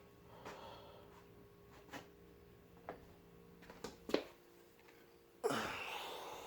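Faint knocks and clicks of parts being handled, over a low steady hum. About five seconds in comes a louder rustling scrape that fades over a second.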